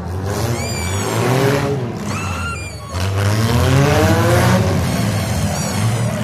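Demolition derby car engines revving, rising and falling in pitch twice, with brief high squeals about half a second in and again just after two seconds.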